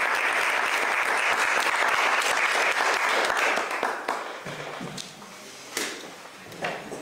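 Audience applause, dying away about four seconds in. It leaves a quieter room with a few knocks and low voices.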